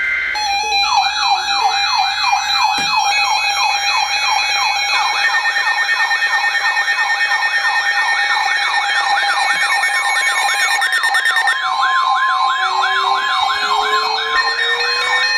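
Layered electronic siren and alert tones: a siren sweeping up and down about three times a second over several steady, beeping high tones. A steady tone joins partway through, and a low tone glides upward near the end.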